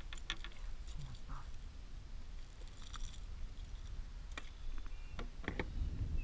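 Scattered light clicks and knocks of a fish and a hooked lure being handled in a plastic kayak, over a low steady rumble.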